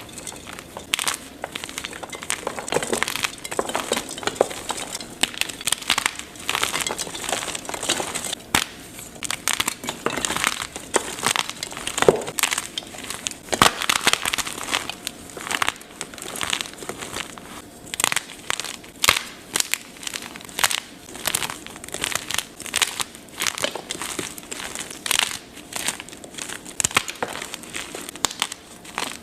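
Blocks of gym chalk being crushed and crumbled, a dense, irregular run of sharp crunches and crackles with softer crumbling between them.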